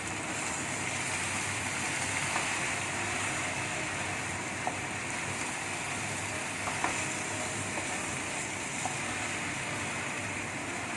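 Yellow noodles and scrambled egg frying in oil in a pan, a steady sizzle, with a few light clicks of the spatula as they are stirred together.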